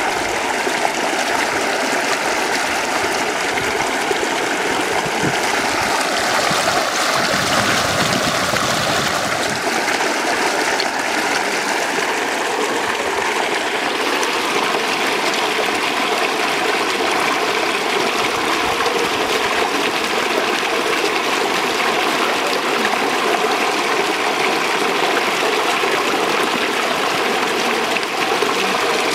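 Steady rushing of running water, even and unbroken throughout.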